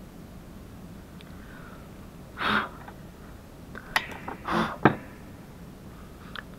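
Two short puffs of breath about two seconds apart, with a few sharp taps around the second one, the loudest just after it.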